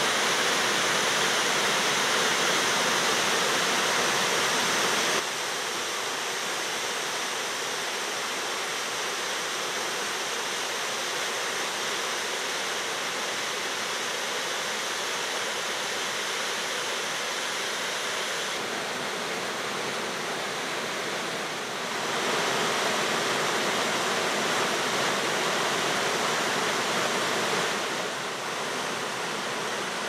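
Water pouring down a partly frozen waterfall and through its icy stream, a steady rushing hiss. It drops a little in loudness about five seconds in, rises again around twenty-two seconds, and drops near the end.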